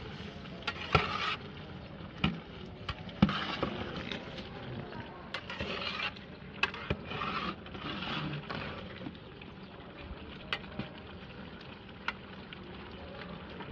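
Stirring and scraping in a large cooking pot (deg) of frying chilli-and-ginger tarka, in short irregular strokes with sharp knocks now and then.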